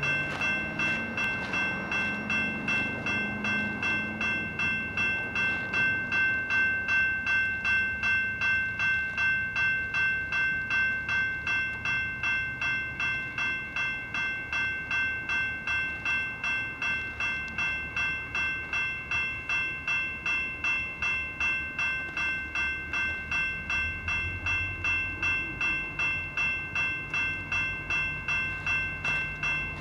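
Railroad grade-crossing bell ringing steadily at about two strokes a second, signalling that the gates are down for an approaching train. A low rumble comes in near the end.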